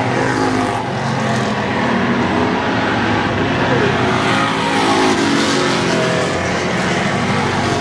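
A pack of street stock race cars running laps on an oval, several engines at once, swelling as cars come past and loudest about five seconds in.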